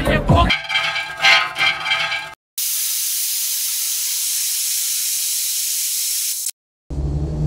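A steady, even hiss, like white noise, that starts abruptly about two and a half seconds in and cuts off sharply about four seconds later, with dead silence just before and after it. Before it, party music and crowd noise fade out.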